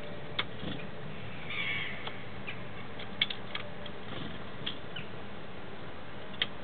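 Great tits at a plastic seed tray: a few sharp taps of beaks and feet on the tray, the strongest about three seconds in, with a short rustle of wings about a second and a half in, over a steady low background hum.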